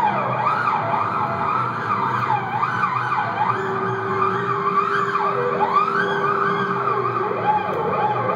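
Experimental electronic music: wavering tones that slide up and down over a steady low drone, with a held lower note through the middle.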